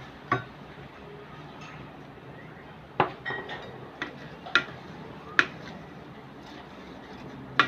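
Wooden spatula stirring wet glutinous rice in a metal rice-cooker pot, knocking sharply against the pot about six times at uneven intervals.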